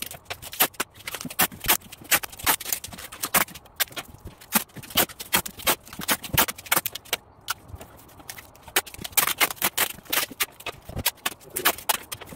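Clear packing tape being handled and pressed along the edges of a cardboard box, making an irregular run of sharp crackles and taps.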